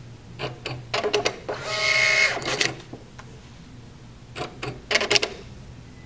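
Star TSP650II thermal receipt printer powering up into its self-test: a few clicks, then about a second of the paper-feed motor whirring in a steady whine as the test page prints, and another run of sharp mechanical clicks about four and a half to five seconds in.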